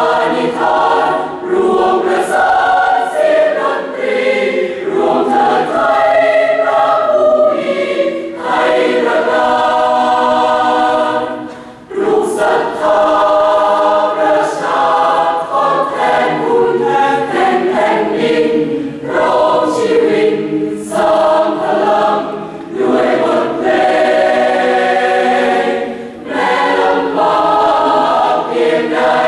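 Large mixed choir of a few hundred men and women singing in parts. The singing briefly falls away about twelve seconds in, then the full choir comes back in together.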